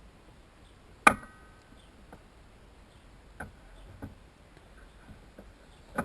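Metal clinks and light knocks from bicycle bearing parts and tools being handled and set down. A sharp clink about a second in rings briefly, fainter knocks follow, and another sharp clink comes near the end.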